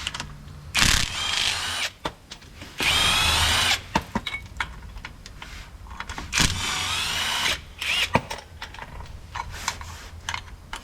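Cordless impact driver backing out 13 mm screws: three runs of about a second each, the whine bending up and down, with small clicks and knocks between them.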